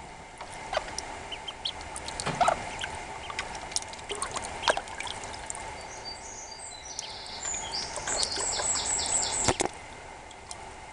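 Ducklings peeping while they paddle and splash in water, with scattered small drips and splashes. A run of quick high chirps comes about two-thirds of the way in.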